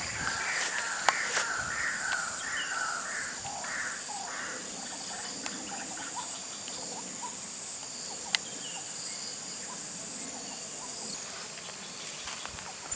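Steady high-pitched insect drone that cuts off about eleven seconds in, with a bird calling a run of short repeated notes over the first few seconds and scattered calls after. Two sharp clicks stand out, about a second in and again near the end.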